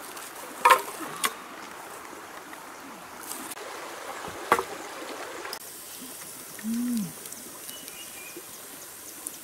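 Sticks of firewood knocking against each other as they are laid onto a pile, a few sharp wooden knocks over a steady outdoor background hiss. About seven seconds in, a short low voice-like tone rises and falls.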